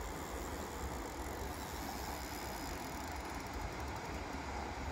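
Steady low outdoor rumble with a faint hiss and no distinct event.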